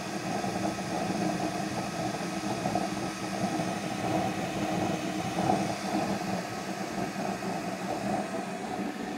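Large ring gas burner burning under a wok, its blue flame giving a steady rushing noise.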